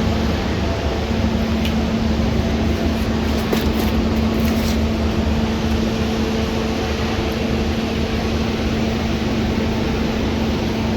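Steady machine drone, a constant hum over a rushing noise, with a few faint clicks between about two and five seconds in.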